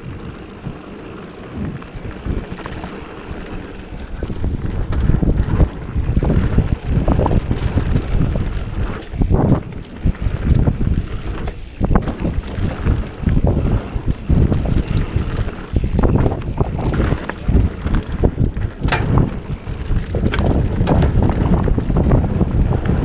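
Wind buffeting an action-camera microphone over the rumble of a Santa Cruz Hightower 27+ mountain bike's tyres on a dirt trail during a fast descent, with frequent sharp knocks and rattles from the bike over bumps. Somewhat quieter for the first few seconds, then busier and louder.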